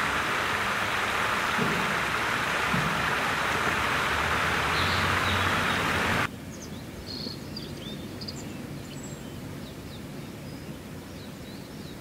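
Rushing river water, a steady loud noise that cuts off abruptly about six seconds in. Then comes quieter outdoor ambience with faint high chirps.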